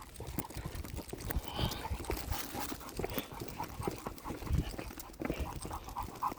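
A big dog sniffling and snuffling in excitement, eager to run. Near the end it breaks into quick, short repeated breaths, about four or five a second.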